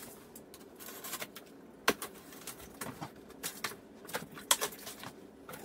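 A Damascus steel knife slicing packing tape on a large cardboard box: irregular scraping, crackling and clicking of blade, tape and cardboard, with two sharp snaps, about two seconds in and about four and a half seconds in.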